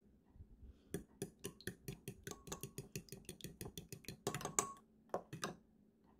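Metal spoon beating eggs and milk in a glass measuring jug, clinking quickly against the glass about four to five times a second. The clinking starts about a second in and stops shortly before the end.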